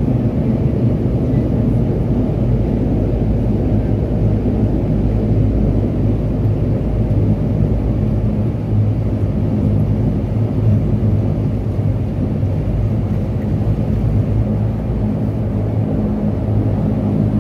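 Steady cabin drone of a Dash 8-300's twin turboprop engines and propellers, a hum of several low steady tones over a rumble, as the aircraft rolls along the runway after touchdown.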